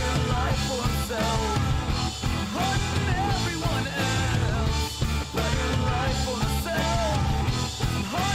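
Indie rock band playing: a full mix with bass and drums under a wavering lead melody, and a singing voice in it.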